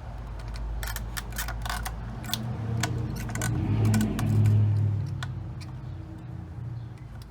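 Scattered clicks and rattles of connectors on a fuel pump assembly being handled, pinched and slid apart. A low hum swells about two seconds in, peaks around the middle and fades.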